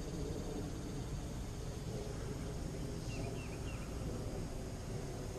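Outdoor ambience: a steady low noise with three faint, short, high chirps about three seconds in.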